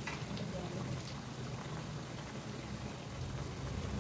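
Tempeh deep-frying in hot oil in a wok: a steady sizzle.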